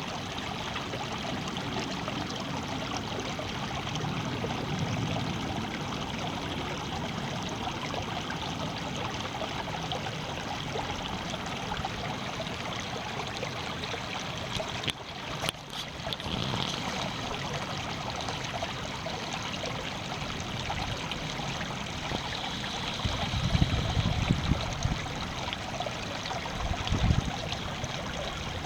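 Flowing water running steadily, like a stream or trickle. It breaks off briefly about halfway through, and a few low rumbles come near the end.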